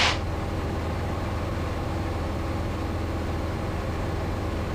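Steady drone of a Cessna 172's piston engine and propeller in cruise flight, heard from inside the cockpit.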